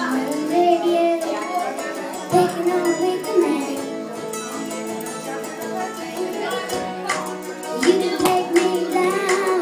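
A young girl singing karaoke into a microphone over a backing track played through a PA. Her voice drops out for a few seconds in the middle, leaving the backing track alone, and comes back in near the end.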